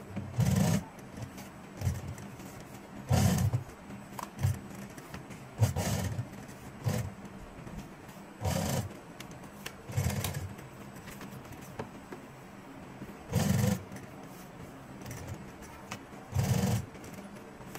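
Industrial sewing machine stitching leather boot upper pieces in about ten short runs of under a second each, stopping between runs while the curved edge is turned and guided.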